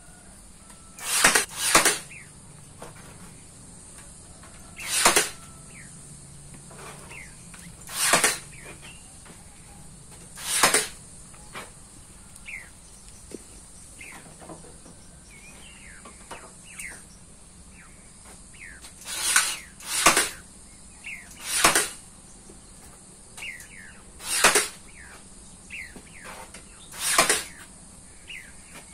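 A short, loud, harsh sound repeated every two to three seconds, with faint falling bird chirps between, over a steady high insect-like hiss.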